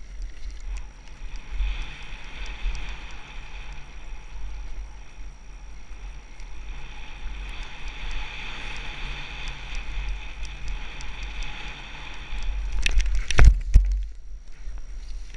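Enduro dirt bike engine running steadily as the bike is ridden. About 13 seconds in comes a cluster of loud crashing knocks as the bike falls over, and then the engine note stops.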